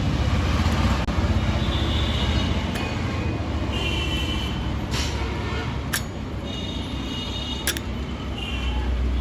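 Steady low rumble of motor-vehicle traffic, with a few sharp clicks in the second half.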